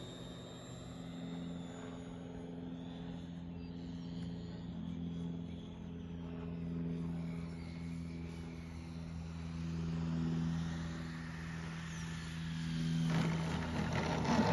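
StinGR electric motor and 28x13 propeller of a 104-inch Extreme Flight Laser RC plane, a steady hum as it flies a circuit. Near the end a rush of noise joins it as the plane touches down and rolls on the asphalt runway.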